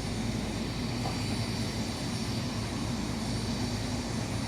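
Helicopter engine and rotor running steadily: a constant mechanical drone with a low hum.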